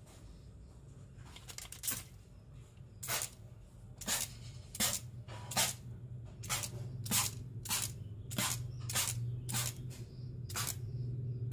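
Toy water pistol squirting with each trigger pull: about a dozen short hissing spurts of water hitting a wall, a little under a second apart, starting about two seconds in.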